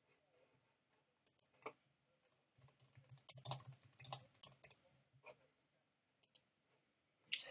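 Typing on a computer keyboard: a quick run of keystrokes in the middle, with a few separate clicks before and after.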